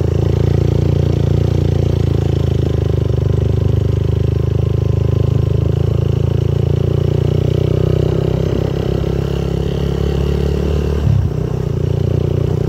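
Motorcycle engine running steadily while riding along a road, with a short louder moment near the end.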